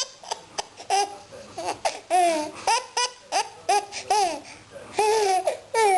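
Baby boy in a laughing fit: a string of short, high-pitched laughs, several a second, many rising and then falling in pitch.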